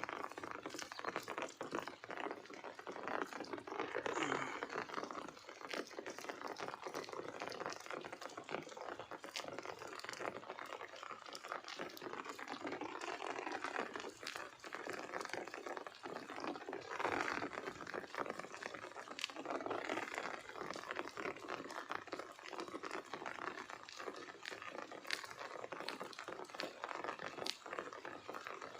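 Water splashing and sloshing, with many small clicks and crackles, coming in uneven surges.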